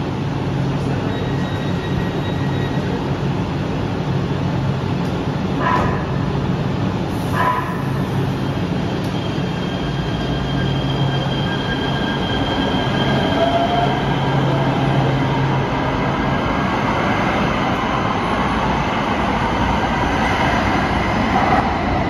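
Light rail train in an underground station: a steady running hum with two short knocks about six and seven seconds in as the doors shut. The train then moves off with a thin high whine that runs through the middle.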